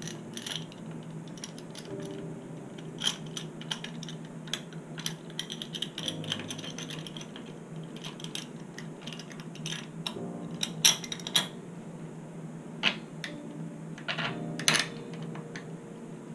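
Scattered sharp metallic clicks, taps and clinks of a small metal hand tool and hardware being worked at the back of a Stratocaster-style electric guitar. The clicks come irregularly, with the loudest few around eleven and fifteen seconds in.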